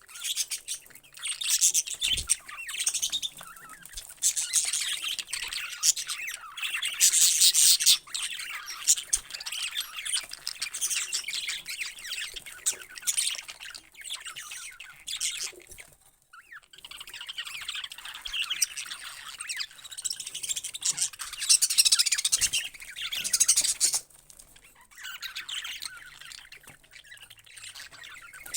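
Parrots chirping and squawking, many high calls overlapping in busy bursts, with a brief lull about halfway through and quieter calling near the end.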